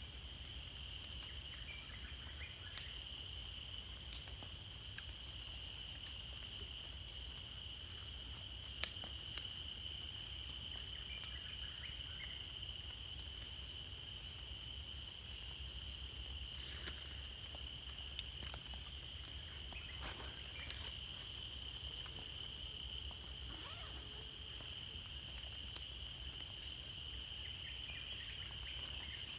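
Tropical forest insect chorus: several layers of high, steady trilling from crickets or cicadas, swelling and fading every few seconds. A thin high whistled note comes in four times, about seven seconds apart.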